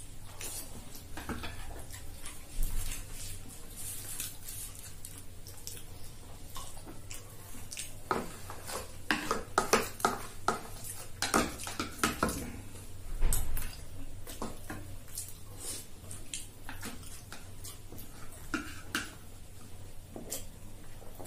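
Metal spoons clinking and scraping against ceramic bowls and plates while two people eat, a scatter of short sharp clicks that grows busiest in the middle, with a couple of dull knocks on the table.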